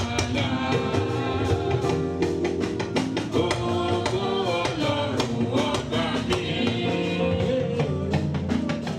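Church service music: voices singing over drums and percussion playing a steady beat.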